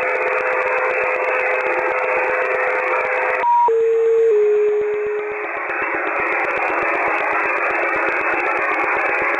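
Shortwave receiver tuned to 3855 kHz in upper sideband: a band-limited hiss with a steady whistle from a carrier. About three and a half seconds in, the whistle gives way to a short higher beep followed by two lower tones stepping down, and the hiss dips while they sound. The hiss then returns with a fainter whistle under it, and fine rapid static clicks run throughout.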